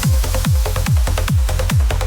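Electronic trance music with a hard, fast kick drum, about four kicks a second, each dropping in pitch, under a held synth note.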